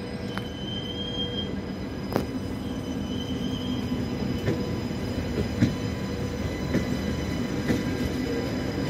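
BB 22200-class electric locomotive BB 22301 hauling an RRR regional coach set, rolling slowly into the platform with a steady rumble that grows gradually louder. There are brief high wheel or brake squeals near the start and a few sharp knocks, one a couple of seconds in and two more later.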